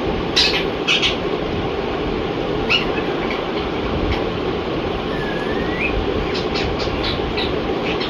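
Rose-ringed (Indian ringneck) parakeet whistling: short sharp chirps, one rising whistle about five seconds in, then a quick run of chirps. Behind it runs a steady noise.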